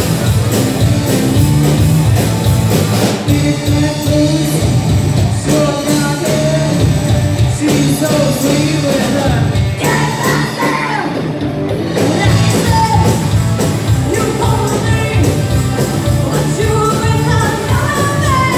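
Live rock band playing a rock-and-roll song, with a singer's wordless vocal lines over the band.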